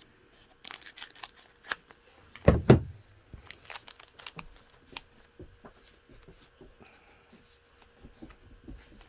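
Trading card pack wrapper being torn open and crinkled, a run of crisp crackles with one louder crunch about two and a half seconds in, then lighter scattered rustling and clicks as the cards are handled.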